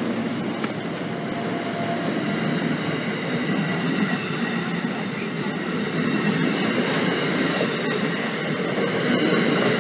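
Amtrak Amfleet passenger coaches passing close by at speed: a steady, loud rumble of wheels running on the rails.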